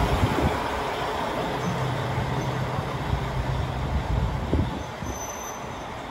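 KiHa 40 diesel railcar rolling slowly along the platform as it pulls into the station, its diesel engine giving a low steady hum; the sound eases off toward the end.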